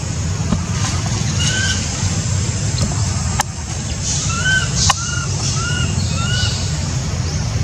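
Baby macaque giving short rising-and-falling squeaking calls: one about a second and a half in, then four in quick succession from about four and a half seconds, over a steady low rumble.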